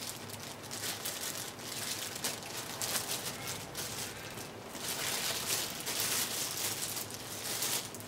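Clear plastic bag crinkling and rustling in the hands as a spinning reel is worked out of it, a steady stream of fine crackles.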